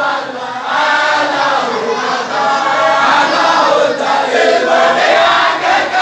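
A group of men chanting a Sufi dhikr (wadifa) together in long, drawn-out lines whose pitch rises and falls. The chanting dips briefly just after the start, then carries on.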